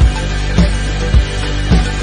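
Background music with a steady beat, just under two beats a second.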